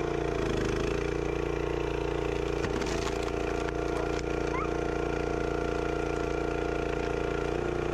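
Small gas engine on a log splitter running steadily, with a brief clatter about three seconds in.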